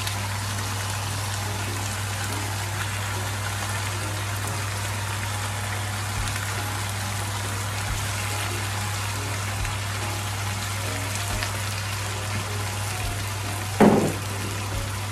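Chicken, vegetables and marinade sauce sizzling steadily in a deep non-stick pan over a gas burner, an even crackle of frying over a steady low hum. A single brief louder knock comes near the end.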